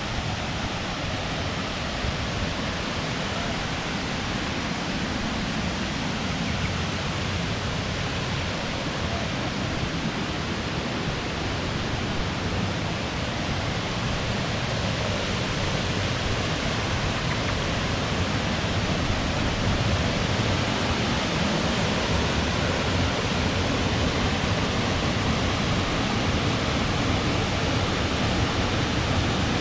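Waterfall: a steady, even rush of falling water, growing slightly louder in the second half.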